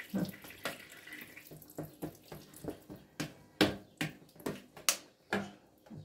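Tap water running briefly and fading out about a second and a half in, then a dozen or so sharp, irregular knocks of fresh eggs being tapped against a hard edge, their shells sturdy and slow to crack.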